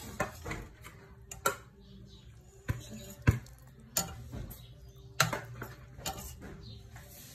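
A metal utensil clinking and knocking against a stainless steel cooking pot as squid simmering in broth is stirred: a handful of sharp, irregularly spaced clinks, the loudest about three seconds in.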